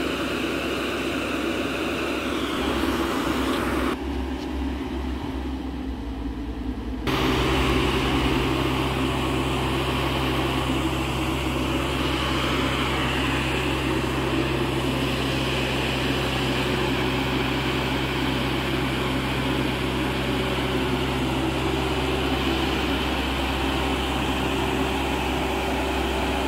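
Travel lift (mobile boat hoist) running steadily as it hoists a sailboat out of the water in slings: a constant mechanical drone with a steady hum, louder from about seven seconds in.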